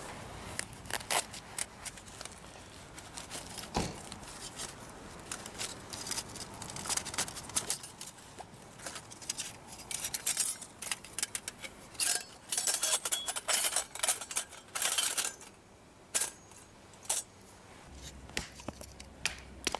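Irregular short clinks and scrapes of hard, partly metallic objects being handled, thickest between about ten and fifteen seconds in.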